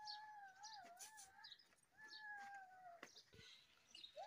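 Faint animal crying in drawn-out, wavering high calls: two long calls, then a third beginning near the end that slides down in pitch.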